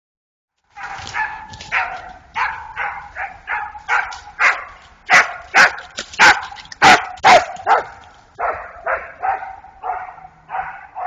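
A dog barking over and over, about two to three barks a second. The barks grow louder towards the middle and then fade somewhat as the dog moves off.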